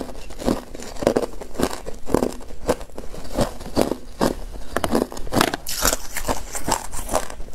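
Hard clear ice being crunched and chewed in the mouth, close to the microphone: sharp crunches in a steady run of about two a second.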